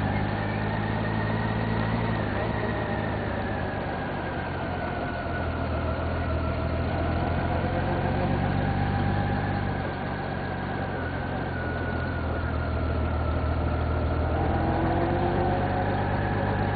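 A vehicle engine running steadily at low revs, its low hum constant while a higher whine drifts slowly up and down in pitch.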